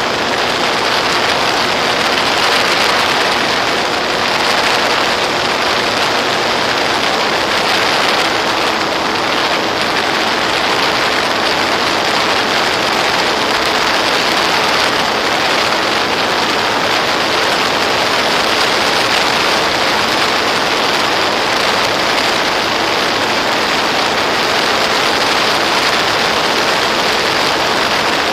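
Steady, loud rushing hiss from a Volantex Ranger EX RC plane in flight, picked up on board, with a faint steady hum underneath.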